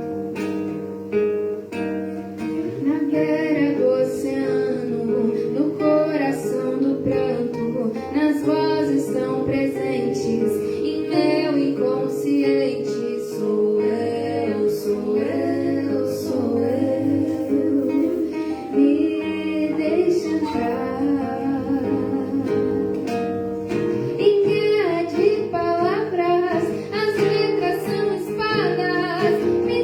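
A song sung to acoustic guitar. The guitar strums alone at first and the voice comes in about two to three seconds in.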